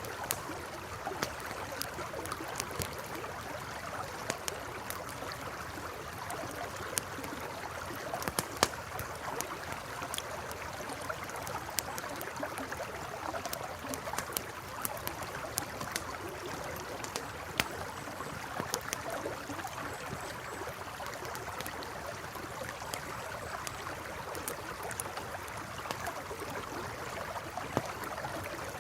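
A river flowing steadily, with a campfire crackling over it in scattered sharp pops, a couple of them louder than the rest.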